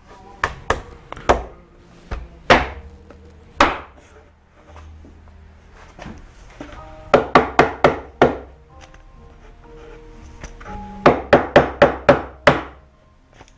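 A wooden breadboard end being knocked home onto the tenons of a desk lid. There are a few single knocks, then a quick run of about five knocks, about four a second, and later another run of about six.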